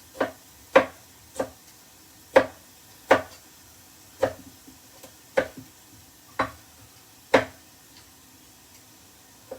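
Kitchen knife slicing through tomatoes onto a chopping board, a sharp knock with each cut, about one a second at an uneven pace.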